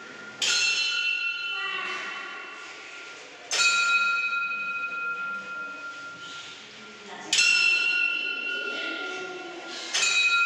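Bell of a large hand-turned prayer wheel, struck once per turn, four strikes about every three seconds, each ringing on with a clear tone that slowly fades.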